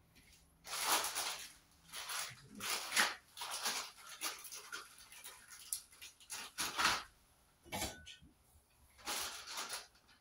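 Rustling and clatter of plastic parts being handled: the clothes rack's grey plastic connectors taken out of their plastic bags and pushed together, in short irregular bursts.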